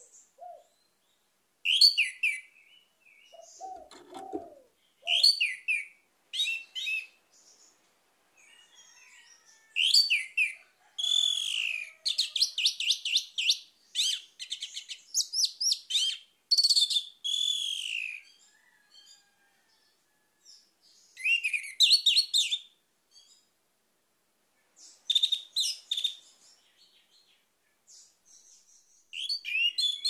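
Orange-headed thrush singing: bursts of rapid, high whistled phrases with pauses between them, and a long run of fast repeated notes around the middle.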